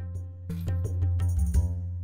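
Music: an Indian film song with sustained pitched notes over a beat of drum strokes.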